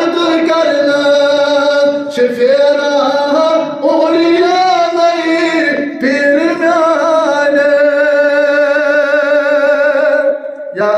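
A man singing devotional verse solo with no instruments, drawing out long held notes with a wavering pitch and pausing briefly for breath; the longest note is held for about four seconds near the end.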